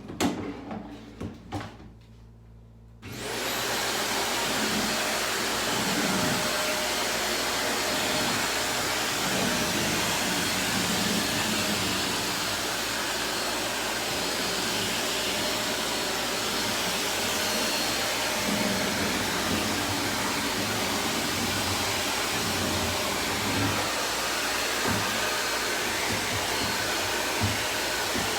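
A few handling knocks and clicks. Then, about three seconds in, a vacuum cleaner switches on and runs at a steady, even pitch.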